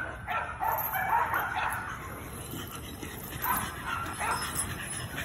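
Pit bull–type dogs yipping and whimpering in two spells, while the dogs are worked pulling chains.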